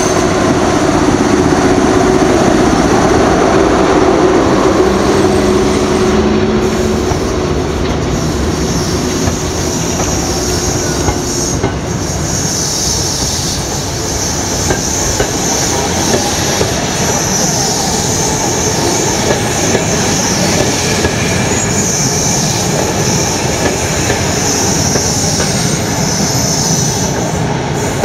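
A departing train passing close by: the EP07 electric locomotive goes past with a steady low hum for the first ten seconds or so. Then its passenger coaches roll by, wheels on rail, with a high-pitched wheel squeal from about halfway through.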